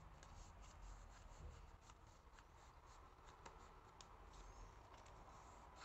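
Faint rustling and light crackles of scrapbook paper being handled as the glued flaps of a small paper envelope are folded and pressed into place.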